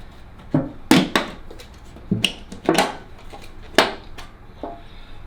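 A shipping container being opened by hand: a series of about eight sharp knocks and rustles, the loudest about a second in.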